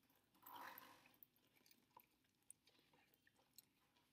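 Faint sounds of eating instant noodles: a soft slurp in the first second, then quiet chewing with a few small clicks.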